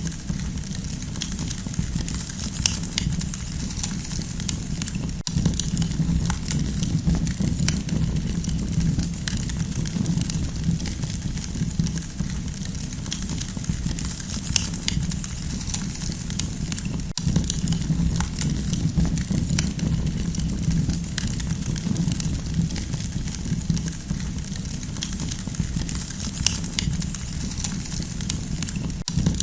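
Campfire crackling: a steady low rumble of burning with frequent sharp pops and snaps scattered throughout.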